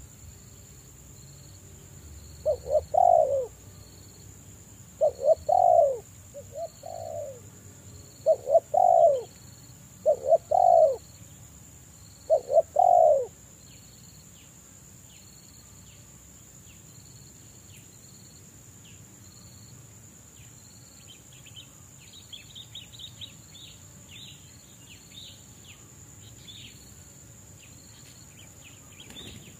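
Spotted dove cooing: about six loud phrases of short, deep, falling coos during the first half, then it falls silent. A steady insect hiss and faint small-bird chirps continue underneath.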